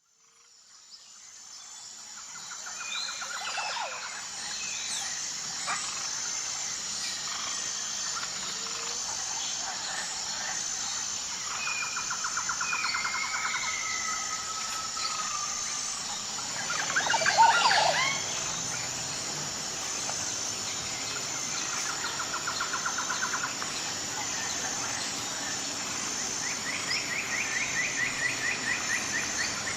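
Birds chirping and calling outdoors, with rapid trills lasting a few seconds that recur several times and a louder flurry of calls just past the middle. A steady high-pitched buzz pulsing about once a second runs underneath.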